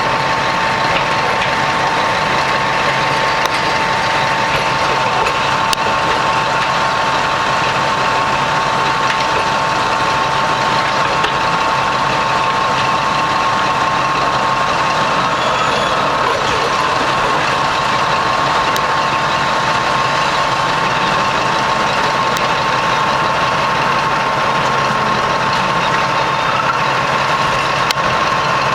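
Heavy mining machinery, a Ruston-Bucyrus excavator loading a CAT 777D haul truck, running steadily, with a steady high whine over the engine noise that creeps up slightly in pitch about halfway through.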